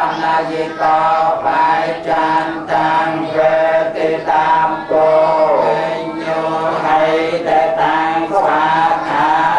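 A group of voices chanting Buddhist prayers in unison, a continuous recitation of long held tones with slow rises and falls in pitch.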